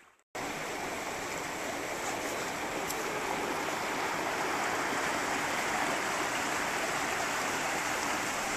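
Water rushing steadily through a narrow concrete channel.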